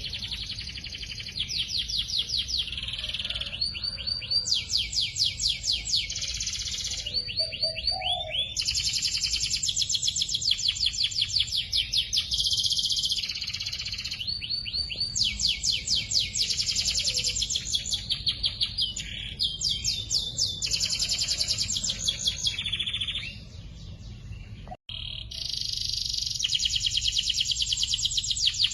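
Domestic canary singing a long, continuous song of fast trilled rolls, each a rapid run of repeated high notes, switching from one roll to the next every second or two. The song briefly breaks off near the end, then resumes.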